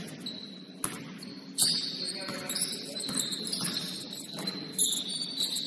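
Basketball game on a court: the ball bouncing with a few sharp thuds, over faint voices and repeated high-pitched squeaks.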